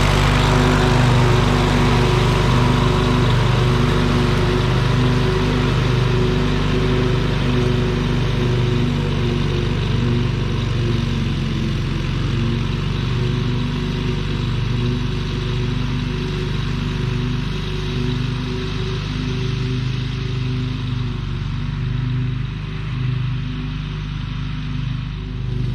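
A riding mower's 16.5 hp twin-cylinder Briggs & Stratton engine running steadily, firing again on a new ignition coil after having no spark. It eases off slightly near the end.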